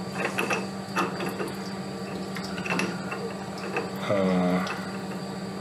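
Small metallic clicks and scraping of a thread plug gauge's no-go end being turned by hand against a threaded 316L stainless steel part, checking the thread. A steady low hum runs underneath.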